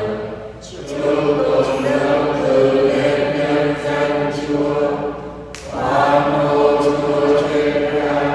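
Voices singing unaccompanied in choir style, in long held phrases with a short break near the start and another about five and a half seconds in.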